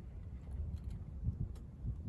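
Uneven low wind rumble on the microphone, with a few faint clicks as the retaining clip is fitted onto a new shear pin in a snowblower's auger.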